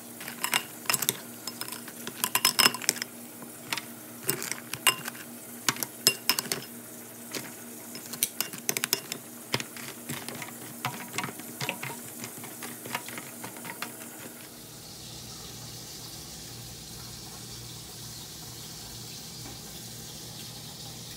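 A metal utensil clicking and scraping against a disposable aluminium foil pan as sauce-coated chicken wings are stirred and moved about, in irregular bursts. For the last several seconds there is only a steady low hum with faint hiss.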